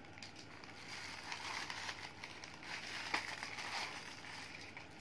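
Packaging crinkling and rustling as a parcel is opened by hand, with a small sharp click about three seconds in.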